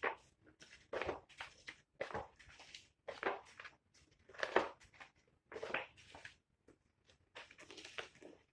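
Large wallpaper sample pages being turned and smoothed by hand in a sample book: a series of paper rustles and swishes, about one a second, with a longer run of rustling near the end.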